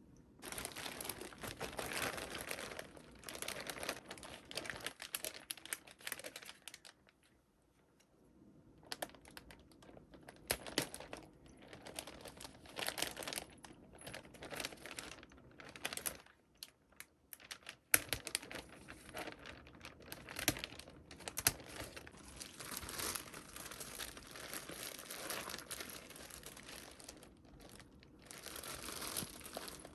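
Packaging crinkling and rustling as it is handled and opened, in irregular bursts with a few sharp clicks. It stops briefly about seven seconds in.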